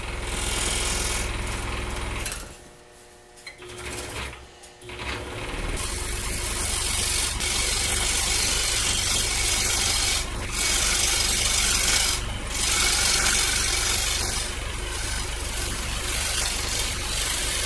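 Scroll saw running with a reverse-tooth blade, cutting thin 1/8 inch plywood: a steady motor hum under a rasping, hissing cutting noise. About two seconds in the sound drops away for roughly three seconds, then it runs on steadily with a few brief dips.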